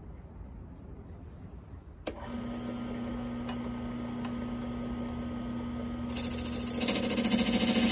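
Wood lathe running with a steady hum, starting with a click about two seconds in. From about six seconds in a hand-held turning tool cuts into the spinning spalted oak cup near the chuck, adding a loud hiss that grows louder toward the end.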